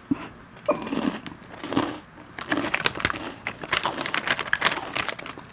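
Plastic snack bag crinkling as it is handled, heard close up: a few soft sounds at first, then a dense run of crackles from about halfway through.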